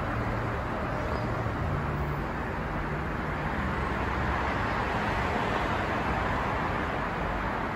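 Steady rumbling background noise on a railway station platform, with a low hum through the first few seconds.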